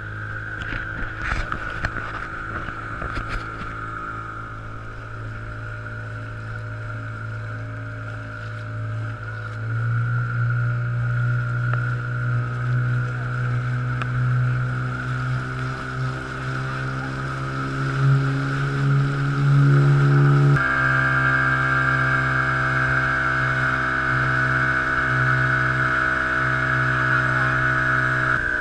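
A boat's motor running steadily, with a few knocks in the first seconds. It speeds up about ten seconds in and again about twenty seconds in, getting louder each time.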